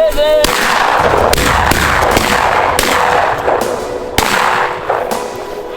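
Several shotgun shots fired at a flushed quail, loud and sharp, with the clearest about half a second in and another about four seconds in.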